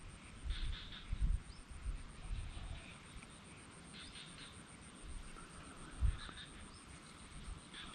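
Outdoor wildlife calls: short chirping calls in clusters every second or two, over a faint steady high-pitched pulsing. A few low thumps are heard, the strongest about a second in and about six seconds in.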